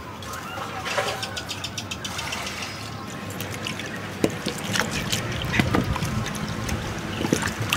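Water splashing and trickling in a metal basin as hands wash ears of corn and leafy greens, with many small irregular splashes that grow busier about halfway through.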